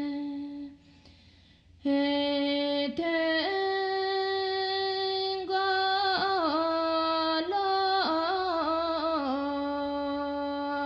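One voice singing a Bhutanese song with long held notes that waver and turn in ornaments, breaking off for about a second near the start before going on.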